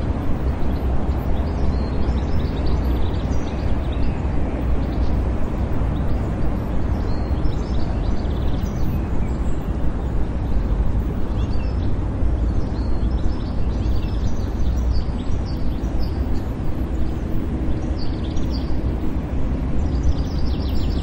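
City park ambience: a steady low rumble of distant traffic with small birds chirping on and off over it.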